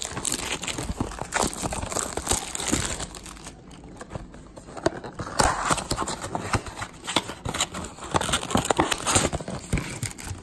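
Crinkling, tearing and clicking of 2018 Topps Chrome baseball card packaging being cut open and handled: a run of irregular crackles and rustles.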